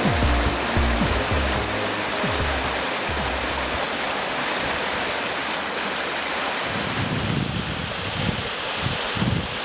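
River water rushing steadily over a weir, with background music fading out about a second in.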